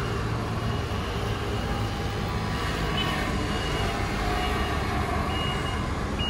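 Steady street traffic at an intersection, mostly motor scooters with some cars, their engines running as they pass. A thin high whistling tone comes and goes several times in the second half.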